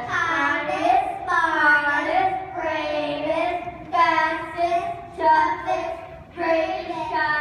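Children singing a song in short phrases of held notes, with brief breaks between phrases.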